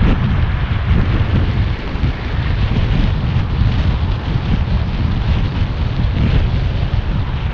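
Wind buffeting the camera microphone: a loud, steady, low rumbling noise that flutters in strength.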